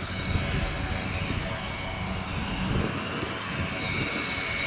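Cessna 208 Caravan's Pratt & Whitney PT6A turboprop engine running at high power for takeoff, a steady whine over a broad rush that grows louder toward the end.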